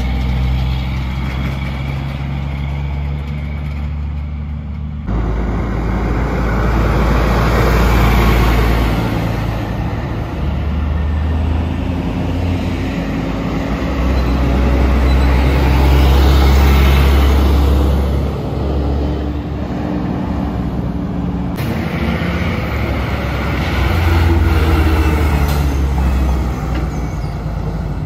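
Diesel semi-trucks driving past one after another, each engine swelling louder and fading as the truck goes by. The sound changes abruptly twice where separate clips are joined.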